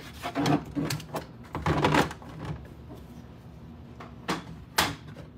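Hard plastic graded-card slabs clicking and clacking as they are handled and set down: a scatter of sharp clicks in the first couple of seconds, then two separate clacks near the end.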